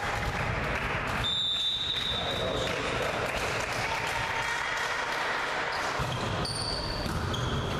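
Echoing gym din during a volleyball match: players' voices and a ball thudding on the court. About a second in comes a long, high, steady whistle lasting over a second.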